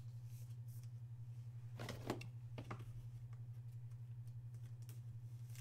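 Faint crinkling rustles and clicks of a soft plastic penny sleeve and a rigid plastic top loader being handled as a trading card is slid into them, mostly in a short cluster about two seconds in. A steady low electrical hum runs underneath.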